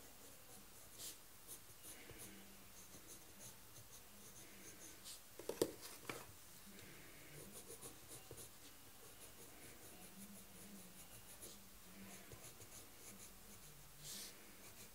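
Faint scratching of a green coloured pencil shading on drawing paper, in short repeated strokes, with a brief knock about halfway through.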